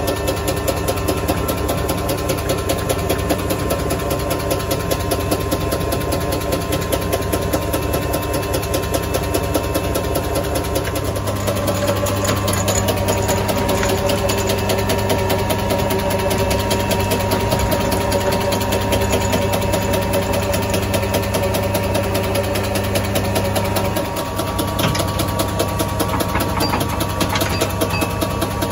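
Metal-turning lathe running steadily, its motor and gearing giving a constant hum and whine as the chuck spins a plastic pipe. About eleven seconds in, the pitch of the drive shifts slightly.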